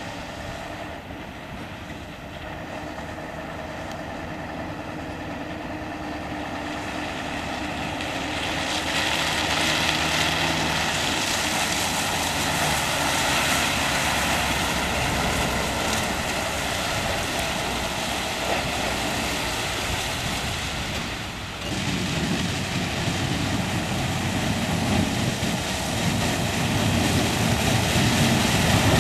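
Mercedes-Benz SK 3544 dump trucks' V8 diesel engines running as the trucks drive past, growing louder over the first several seconds. About two-thirds of the way through the sound breaks off briefly, then comes back with a deeper, louder engine that keeps building.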